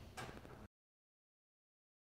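Near silence: a faint fading tail that cuts off suddenly to dead silence less than a second in.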